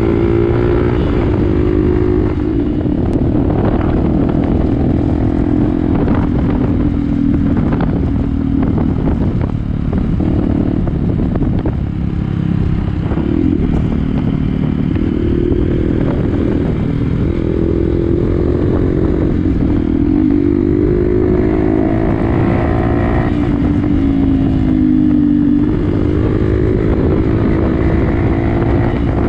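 Motorcycle engine running under way, its pitch drifting up and down as the throttle opens and eases off, over a steady low rumble.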